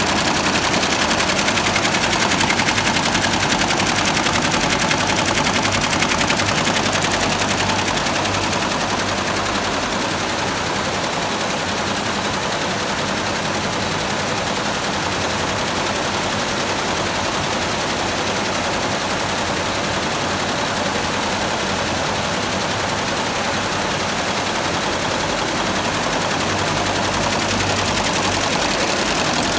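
Computer embroidery machines stitching: a steady, rapid needle clatter that eases slightly after about eight seconds and picks up again near the end.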